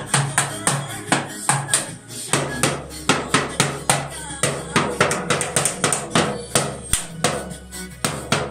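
Toy drum set struck with drumsticks: small plastic drums and a little cymbal hit in a fairly even, rapid beat of about three strikes a second.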